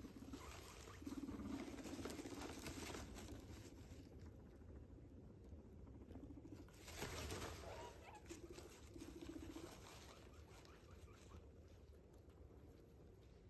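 Guinea pigs rustling through wood-shaving bedding and hay, faint, with a louder rustle about seven seconds in. There are a few short, low buzzing calls, about one, six and nine seconds in.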